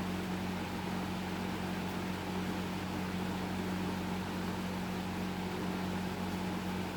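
Hampton Bay Carriage House 52-inch five-blade ceiling fan, an Air Cool-built model, running: a steady low motor hum over an even rush of air.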